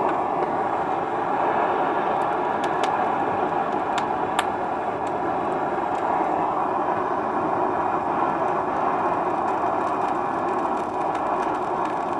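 Handheld gas torch burner running steadily, its flame aimed into a charcoal grill to light the charcoal. A few sharp clicks in the first few seconds.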